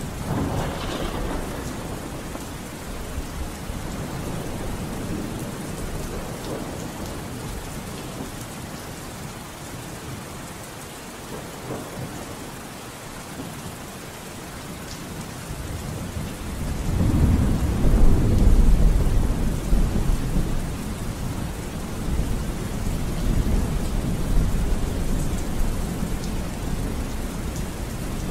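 Steady rain with rolling thunder. A long, low rumble swells a little past halfway, is loudest shortly after, then fades slowly.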